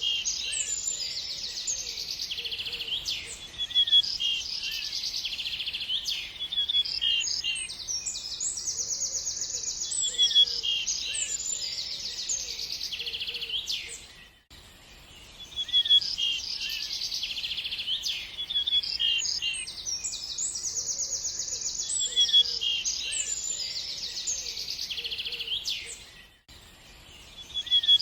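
Birdsong: several birds chirping and trilling fast, high notes in a dense chorus. The same stretch of song repeats about every twelve seconds, with a brief drop in level each time it starts over.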